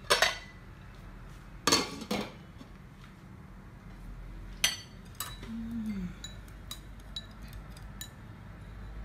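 Metal spoon and chopsticks clinking against a stainless steel pot and ceramic bowls, with three loud clanks in the first couple of seconds as the pot's lid goes on, then lighter clicks and ticks.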